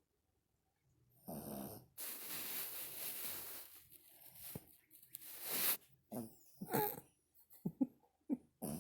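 Sleeping dogs snoring: a snore about a second in, then a long airy breath, then several short squeaky wheezes, and another snore starting at the very end.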